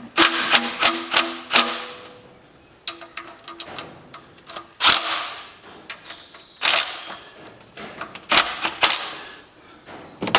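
Metal hand tools clicking and clanking against bolts and the engine's front cover in short irregular groups, some strikes ringing briefly, as the timing cover bolts are started and snugged down.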